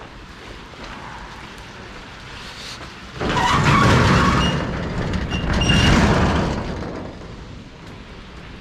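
Passing road traffic: a car's tyre and engine noise swells about three seconds in, peaks twice and fades away by about seven seconds.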